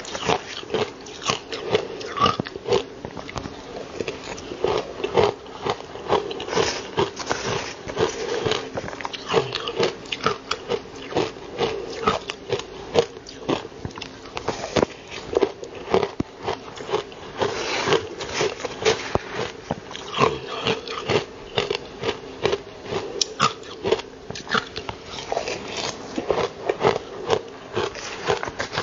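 Crushed ice crunching and cracking between teeth as it is bitten and chewed, picked up close by a clip-on microphone. The crunches come irregularly, several a second.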